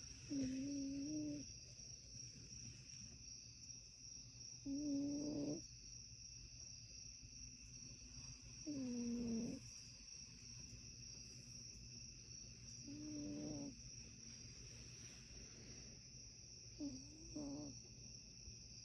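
A cat snoring: five snores of about a second each, coming about every four seconds, each with a clear pitch; a couple dip and then rise in pitch.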